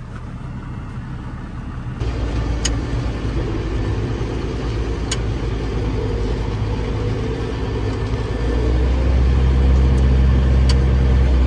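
John Deere 7810 tractor's six-cylinder diesel engine running, heard from inside the cab, steady and getting louder about eight seconds in. Three sharp light clicks are heard over it.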